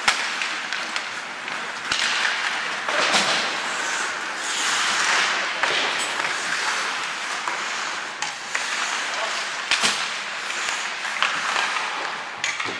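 Ice hockey play heard from rink-side: skates hissing and scraping on the ice, with sharp clacks of sticks and puck several times and spectators talking.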